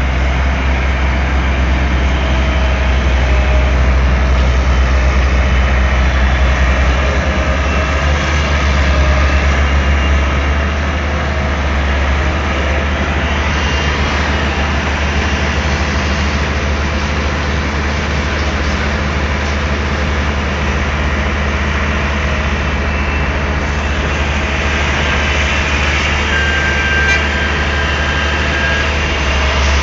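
Daewoo Solar 280 LC-III crawler excavator's diesel engine running steadily with a deep, even sound.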